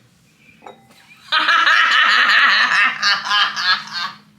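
Loud, excited laughter that starts suddenly about a second in and lasts about three seconds.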